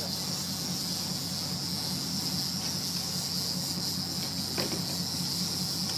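Charter fishing boat's engine running steadily, a constant low hum under a steady high hiss, with one short click about four and a half seconds in.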